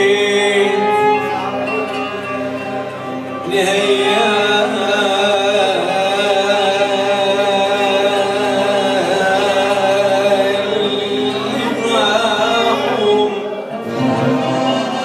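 Live Middle Eastern band music: a man singing melodic runs into a microphone over violin, qanun and hand-drum percussion.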